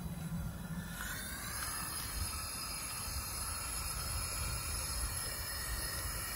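Propane burner of a metal-melting furnace running with a steady hiss of gas and flame. A low hum stops about a second in and the hiss takes over.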